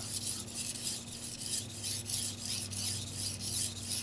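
Carbon-steel (Shirogami white steel) kitchen knife edge scraped back and forth on a wet water stone in quick, even strokes, a rhythmic gritty hiss. The edge is being ground near the tip to raise a burr.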